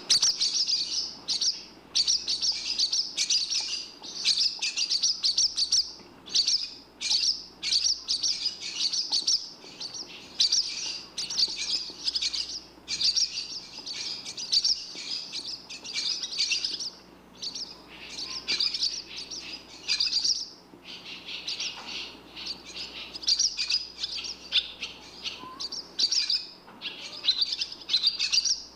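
Barn swallow twittering: rapid, high-pitched chirping phrases a second or two long, one after another with short pauses between them.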